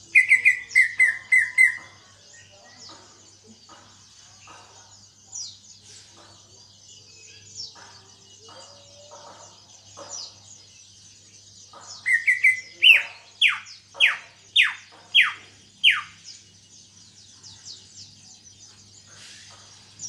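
Cucak ijo (green leafbird) singing in bursts. It starts with a quick run of about six clear whistled notes, then after a stretch of soft chatter gives a louder phrase of about six sharply falling whistles, roughly half a second apart. Faint high twittering continues underneath.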